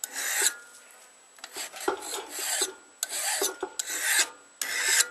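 Hand file scraping back and forth across a steel knife blade clamped in a vise, bevelling the cutting edge; repeated rasping strokes, about one a second.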